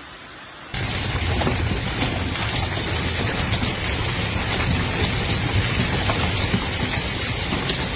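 Heavy rain and hail pelting down on surfaces, a dense steady clatter with many small hits in it, starting abruptly about three-quarters of a second in.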